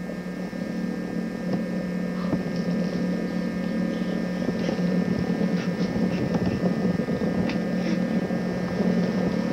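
A steady low hum with several faint high steady tones above it, and a few faint soft ticks.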